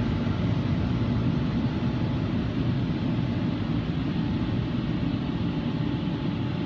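WashTec automatic rollover car wash machine running, heard from inside the car as a steady rushing rumble.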